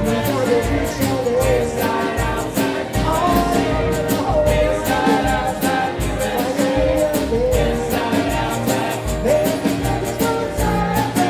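Live traditional Dixieland-style jazz band playing an upbeat number, with a wavering lead melody over a pulsing bass and a steady beat on drums and cymbals.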